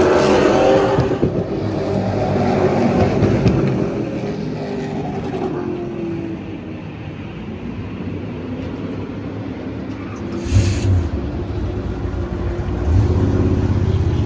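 Super stock race car's V8 engine heard from inside the cockpit. The engine note eases off and runs quieter through the middle, with a brief rev about ten seconds in and a louder low steady drone near the end.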